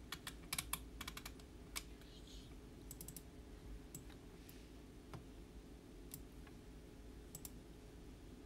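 Faint, irregular clicking, a quick run of clicks in the first two seconds and then only a few scattered ones, over a low, steady hum.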